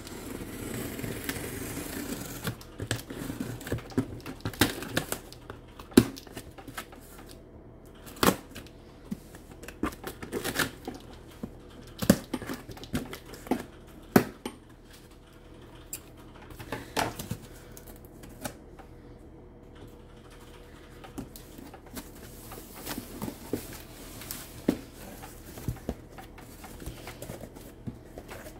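Scissors slitting the packing tape on a cardboard shipping box, then the cardboard flaps being pulled open and handled: scattered sharp clicks and knocks with scraping and rustling in between.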